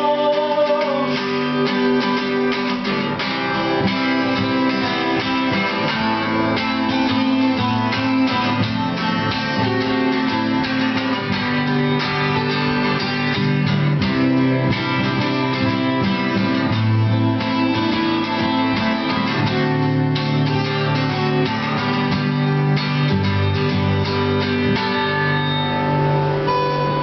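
Two acoustic guitars playing an instrumental passage: a strummed chord accompaniment under a picked lead line.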